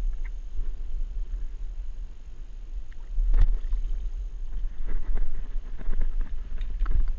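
Steady low wind rumble on the microphone, with one sharp knock about three and a half seconds in and a few light clicks after it.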